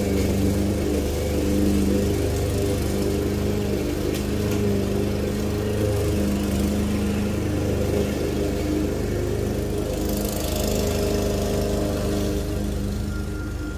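Walk-behind lawn mower's small engine running steadily under load while cutting tall grass, growing slightly fainter near the end as it moves away.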